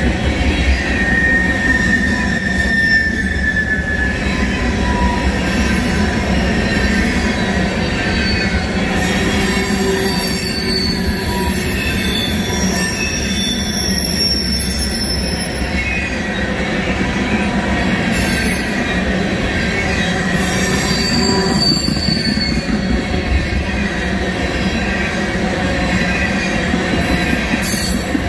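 Empty ethanol tank cars of a freight train rolling past: a steady rumble of steel wheels on the rails, with high-pitched wheel squeals coming and going, strongest through the middle.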